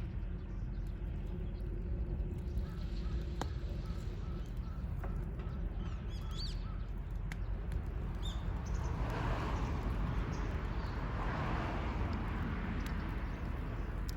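Birds calling, with crows cawing and a few short high chirps, over a steady low rumble.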